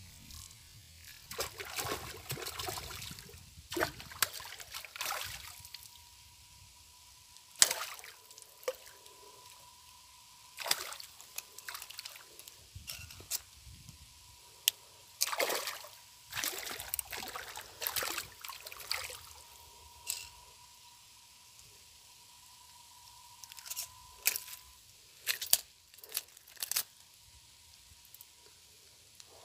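Water splashing and sloshing in irregular bursts as a hooked fish thrashes at the surface and is reeled in and lifted from the water.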